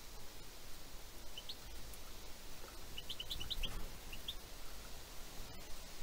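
Small songbird giving short high chirps: a pair about a second and a half in, then a quick run of about six around three seconds in, and two more just after.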